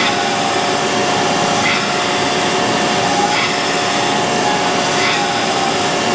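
Cam grinder's wheel grinding the fuel pump lobe of a GM L8T camshaft under flowing coolant, a steady machine grind with a brief change in the sound about every 1.7 seconds as the slowly turning cam brings the lobe round. The lobe is on its last passes toward a 32%-over regrind.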